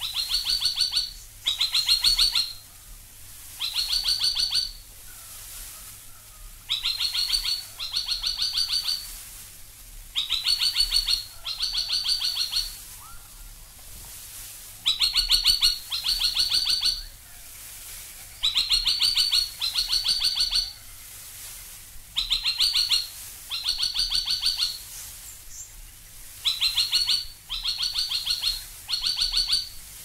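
Spine-tailed logrunner (Australian logrunner) calling: loud, rapid strings of sharp repeated notes, each string under a second long, given in pairs or threes about every four seconds.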